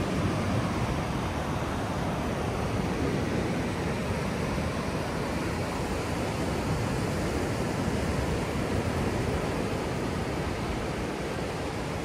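Ocean surf breaking and washing up on a sandy beach, a steady rushing noise, with wind rumbling on the microphone.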